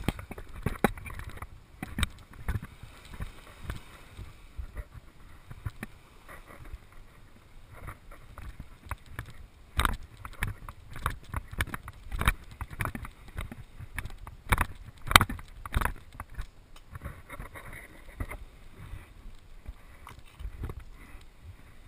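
Irregular thumps and rustles from a body-worn camera jostling as its wearer walks across sand.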